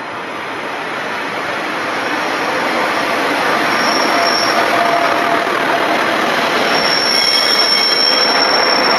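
Diesel multiple unit running into the station platform and past close by, growing louder, with a high-pitched wheel squeal about four seconds in and again from about seven seconds.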